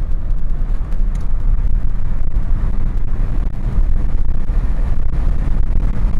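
Renault Megane 4 being driven under throttle, heard from inside the cabin: a steady low rumble of engine and road noise.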